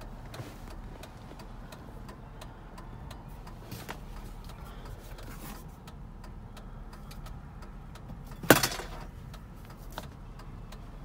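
Steady low hum inside the cab of an SUV with faint scattered ticks, and one loud sharp knock about eight and a half seconds in, as of a fitting inside the cab being knocked or snapped shut.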